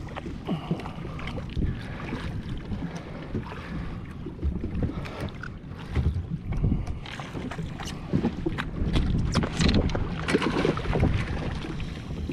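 Water slapping and splashing against a fishing jetski's hull, with wind buffeting the microphone and scattered short knocks and splashes.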